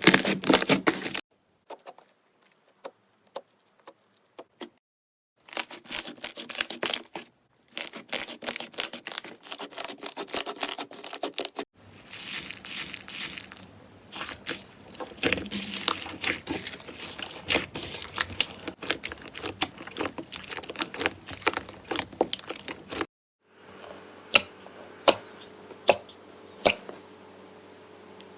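Slime being pressed, stretched and poked: dense crackling and popping clicks, in several short stretches broken by a few abrupt silent cuts.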